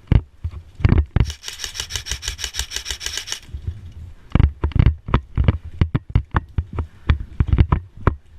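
Airsoft electric gun firing a full-auto burst of about two seconds, a rapid even rattle of about eleven shots a second. It is followed by irregular knocks and thumps.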